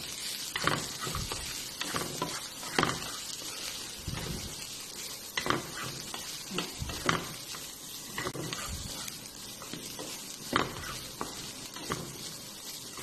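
Chicken, onion and carrot sizzling in a nonstick frying pan while a spatula stirs them, with irregular scrapes and knocks of the spatula against the pan.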